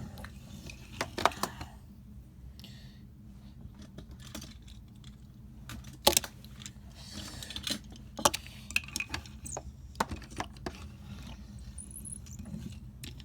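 Steady low rumble of a car's cabin while driving, with scattered sharp clicks and light rattles; the loudest clicks come about a second in and about six seconds in.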